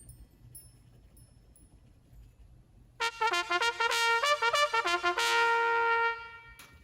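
A short brass fanfare sound effect: a quick run of trumpet-like notes starting about three seconds in, ending on a held chord that cuts off a little after six seconds. Faint high tinkling tones come before it.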